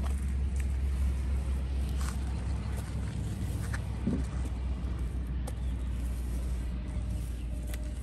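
Steady low rumble with a few faint clicks over it; the rumble fades near the end.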